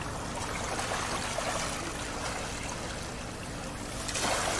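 Small harbor waves lapping and splashing at the water's edge, with a louder wash of water about four seconds in.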